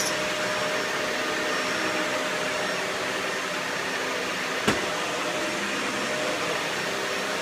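Toy Dyson upright vacuum cleaner running with a steady motor whir and hum. There is a single sharp click a bit under five seconds in.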